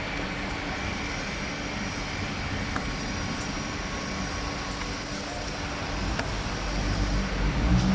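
Steady low rumbling background noise with a faint hum and a few soft clicks, growing louder near the end.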